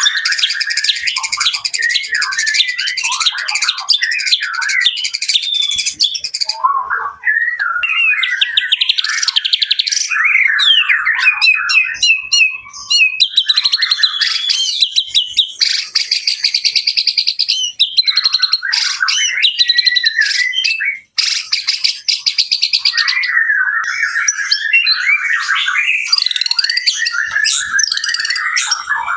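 White-rumped shama (murai batu) singing a long, varied song: loud whistled phrases that glide up and down, mixed with fast rattling trills, with only brief pauses.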